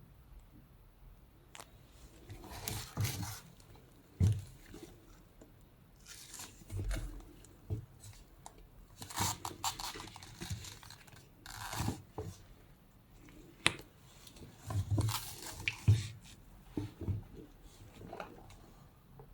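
Packaging being handled and opened: intermittent rustling and tearing in short bursts, with a few sharp clicks.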